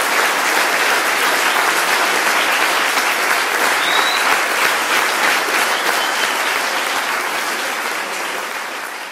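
Audience applauding, a dense wash of many hands clapping that fades out toward the end.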